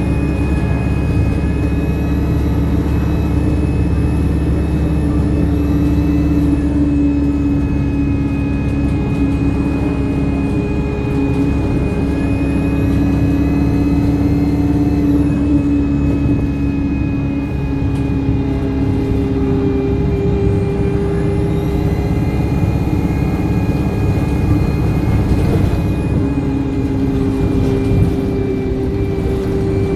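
Alexander Dennis Enviro200 single-deck bus under way, its diesel engine running steadily with a high turbocharger whine that rises, holds and falls away several times as the bus pulls and eases off.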